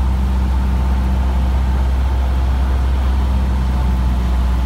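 Cessna 150's four-cylinder Continental O-200 engine and propeller droning steadily, heard from inside the cockpit on final approach.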